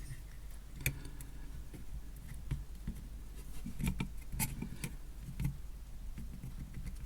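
Scattered light clicks and taps from hand-soldering a wire onto a small circuit board, with the iron, wire and board handled on the bench, over a low steady hum.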